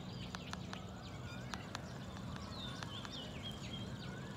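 Birds calling in repeated short whistled phrases, with scattered sharp clicks over a steady low hum.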